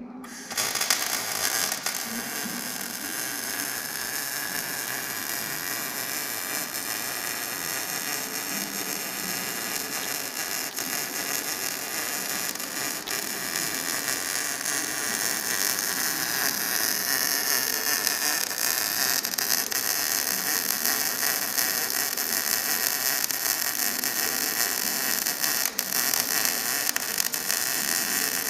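Electric welding arc from a Stahlwerk MIG-TIG Digital 200 welder burning on steel: a steady crackling hiss that strikes up suddenly at the start and runs on without a break.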